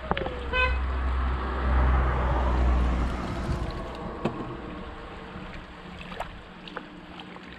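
Water poured from a large plastic bottle into a collapsible plastic basin, a heavy splashing pour for about three seconds that then trails off, with a few light knocks as the basin is handled.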